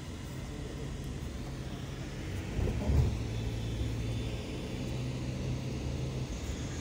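Car engine and road noise heard from inside the cabin while driving, a low steady hum, with one dull thump about three seconds in.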